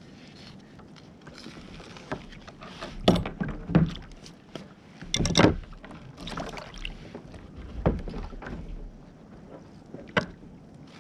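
Knocks and handling noises on a fishing kayak as a freshly caught snapper and its line are handled: a handful of sharp thumps over a low background hiss, the loudest about halfway in.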